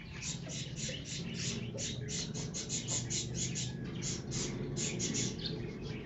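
Small aviary birds chirping: a fast, even run of short high chirps, about five a second, over a low steady hum.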